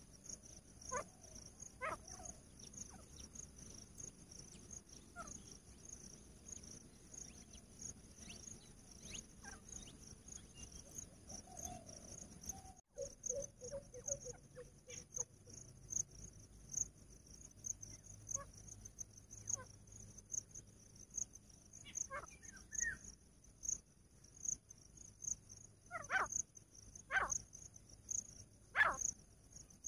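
Steady high chirring of crickets, with scattered short sharp calls that become a louder series of notes roughly once a second over the last few seconds, from grey francolins.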